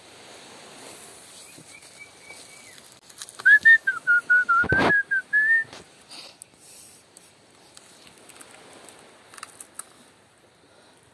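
A short run of clear whistled notes, wavering a little in pitch, lasting about two seconds and coming after a fainter, higher whistle. A single sharp knock falls in the middle of it.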